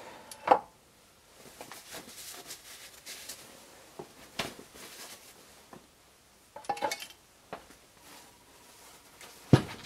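Workbench handling of the opened dental X-ray head casing: scattered knocks and clinks of metal parts against the metal drip tray, with the loudest knock near the end.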